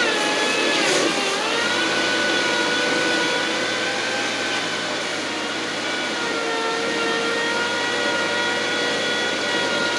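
Engine of a piece of landscaping equipment running steadily at working speed. About a second in, its pitch dips briefly and then recovers.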